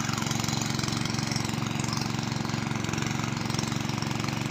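Small engine driving a water pump to drain the pond, running steadily at a constant speed with a fast, even chug.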